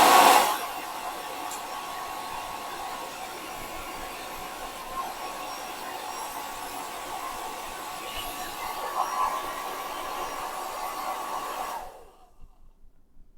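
Philips 1600 W hair dryer running: a steady rush of air from its fan with a thin steady whine. It is loudest in the first half second, then runs evenly until it is switched off about 12 seconds in.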